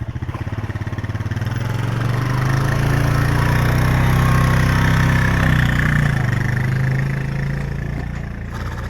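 A motor vehicle engine running with a low, pulsing hum. It grows louder about a second and a half in, holds for a few seconds, then eases back down near the end.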